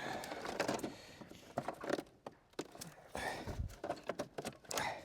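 Scattered clicks, rattles and rustling of a car's wiring harness and its plastic connectors being worked loose by hand, with a dull low thump about three and a half seconds in.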